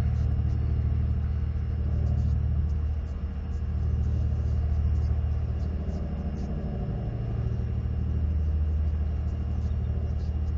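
Wind buffeting an outdoor microphone: a low rumble that swells and eases with the gusts.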